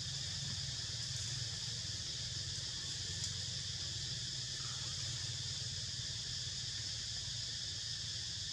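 Steady high-pitched drone of insects in a forest, unbroken throughout, with a low steady hum underneath.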